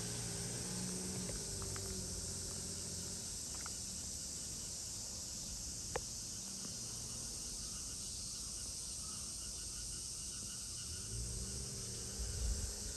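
Steady high-pitched insect drone. A low hum sits under it at the start and again near the end, and there is a single sharp click about six seconds in.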